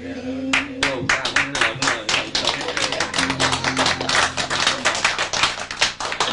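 Audience applauding, starting about half a second in, with faint held notes of the accompanying music underneath.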